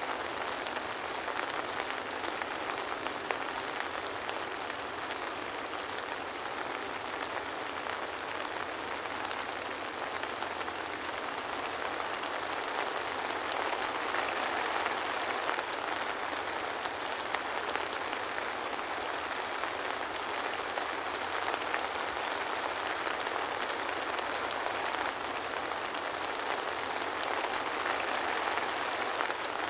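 Steady soft rain falling, an even hiss of many small drops with fine pattering ticks and no thunder.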